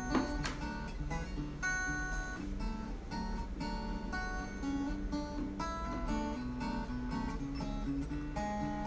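Background music: an acoustic guitar playing plucked and strummed notes at an even pace.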